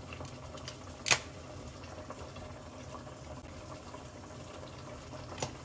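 Tomato sauce simmering in a pot, a low steady bubbling, with a sharp click about a second in and a softer one near the end.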